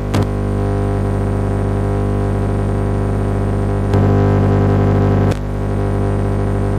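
FM radio receiving a pirate transmitter whose signal is swamped by a steady, many-toned electrical buzz and hiss. The buzz is chopping noise from the transmitter's switching power supply, which has completely spoiled its stereo encoder. A couple of clicks come at the start, and the buzz grows louder about four seconds in, then drops back a second and a half later.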